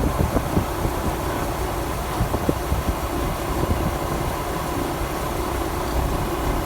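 Bobcat skid-steer loader's engine running steadily, with several sharp knocks and clanks in the first two and a half seconds.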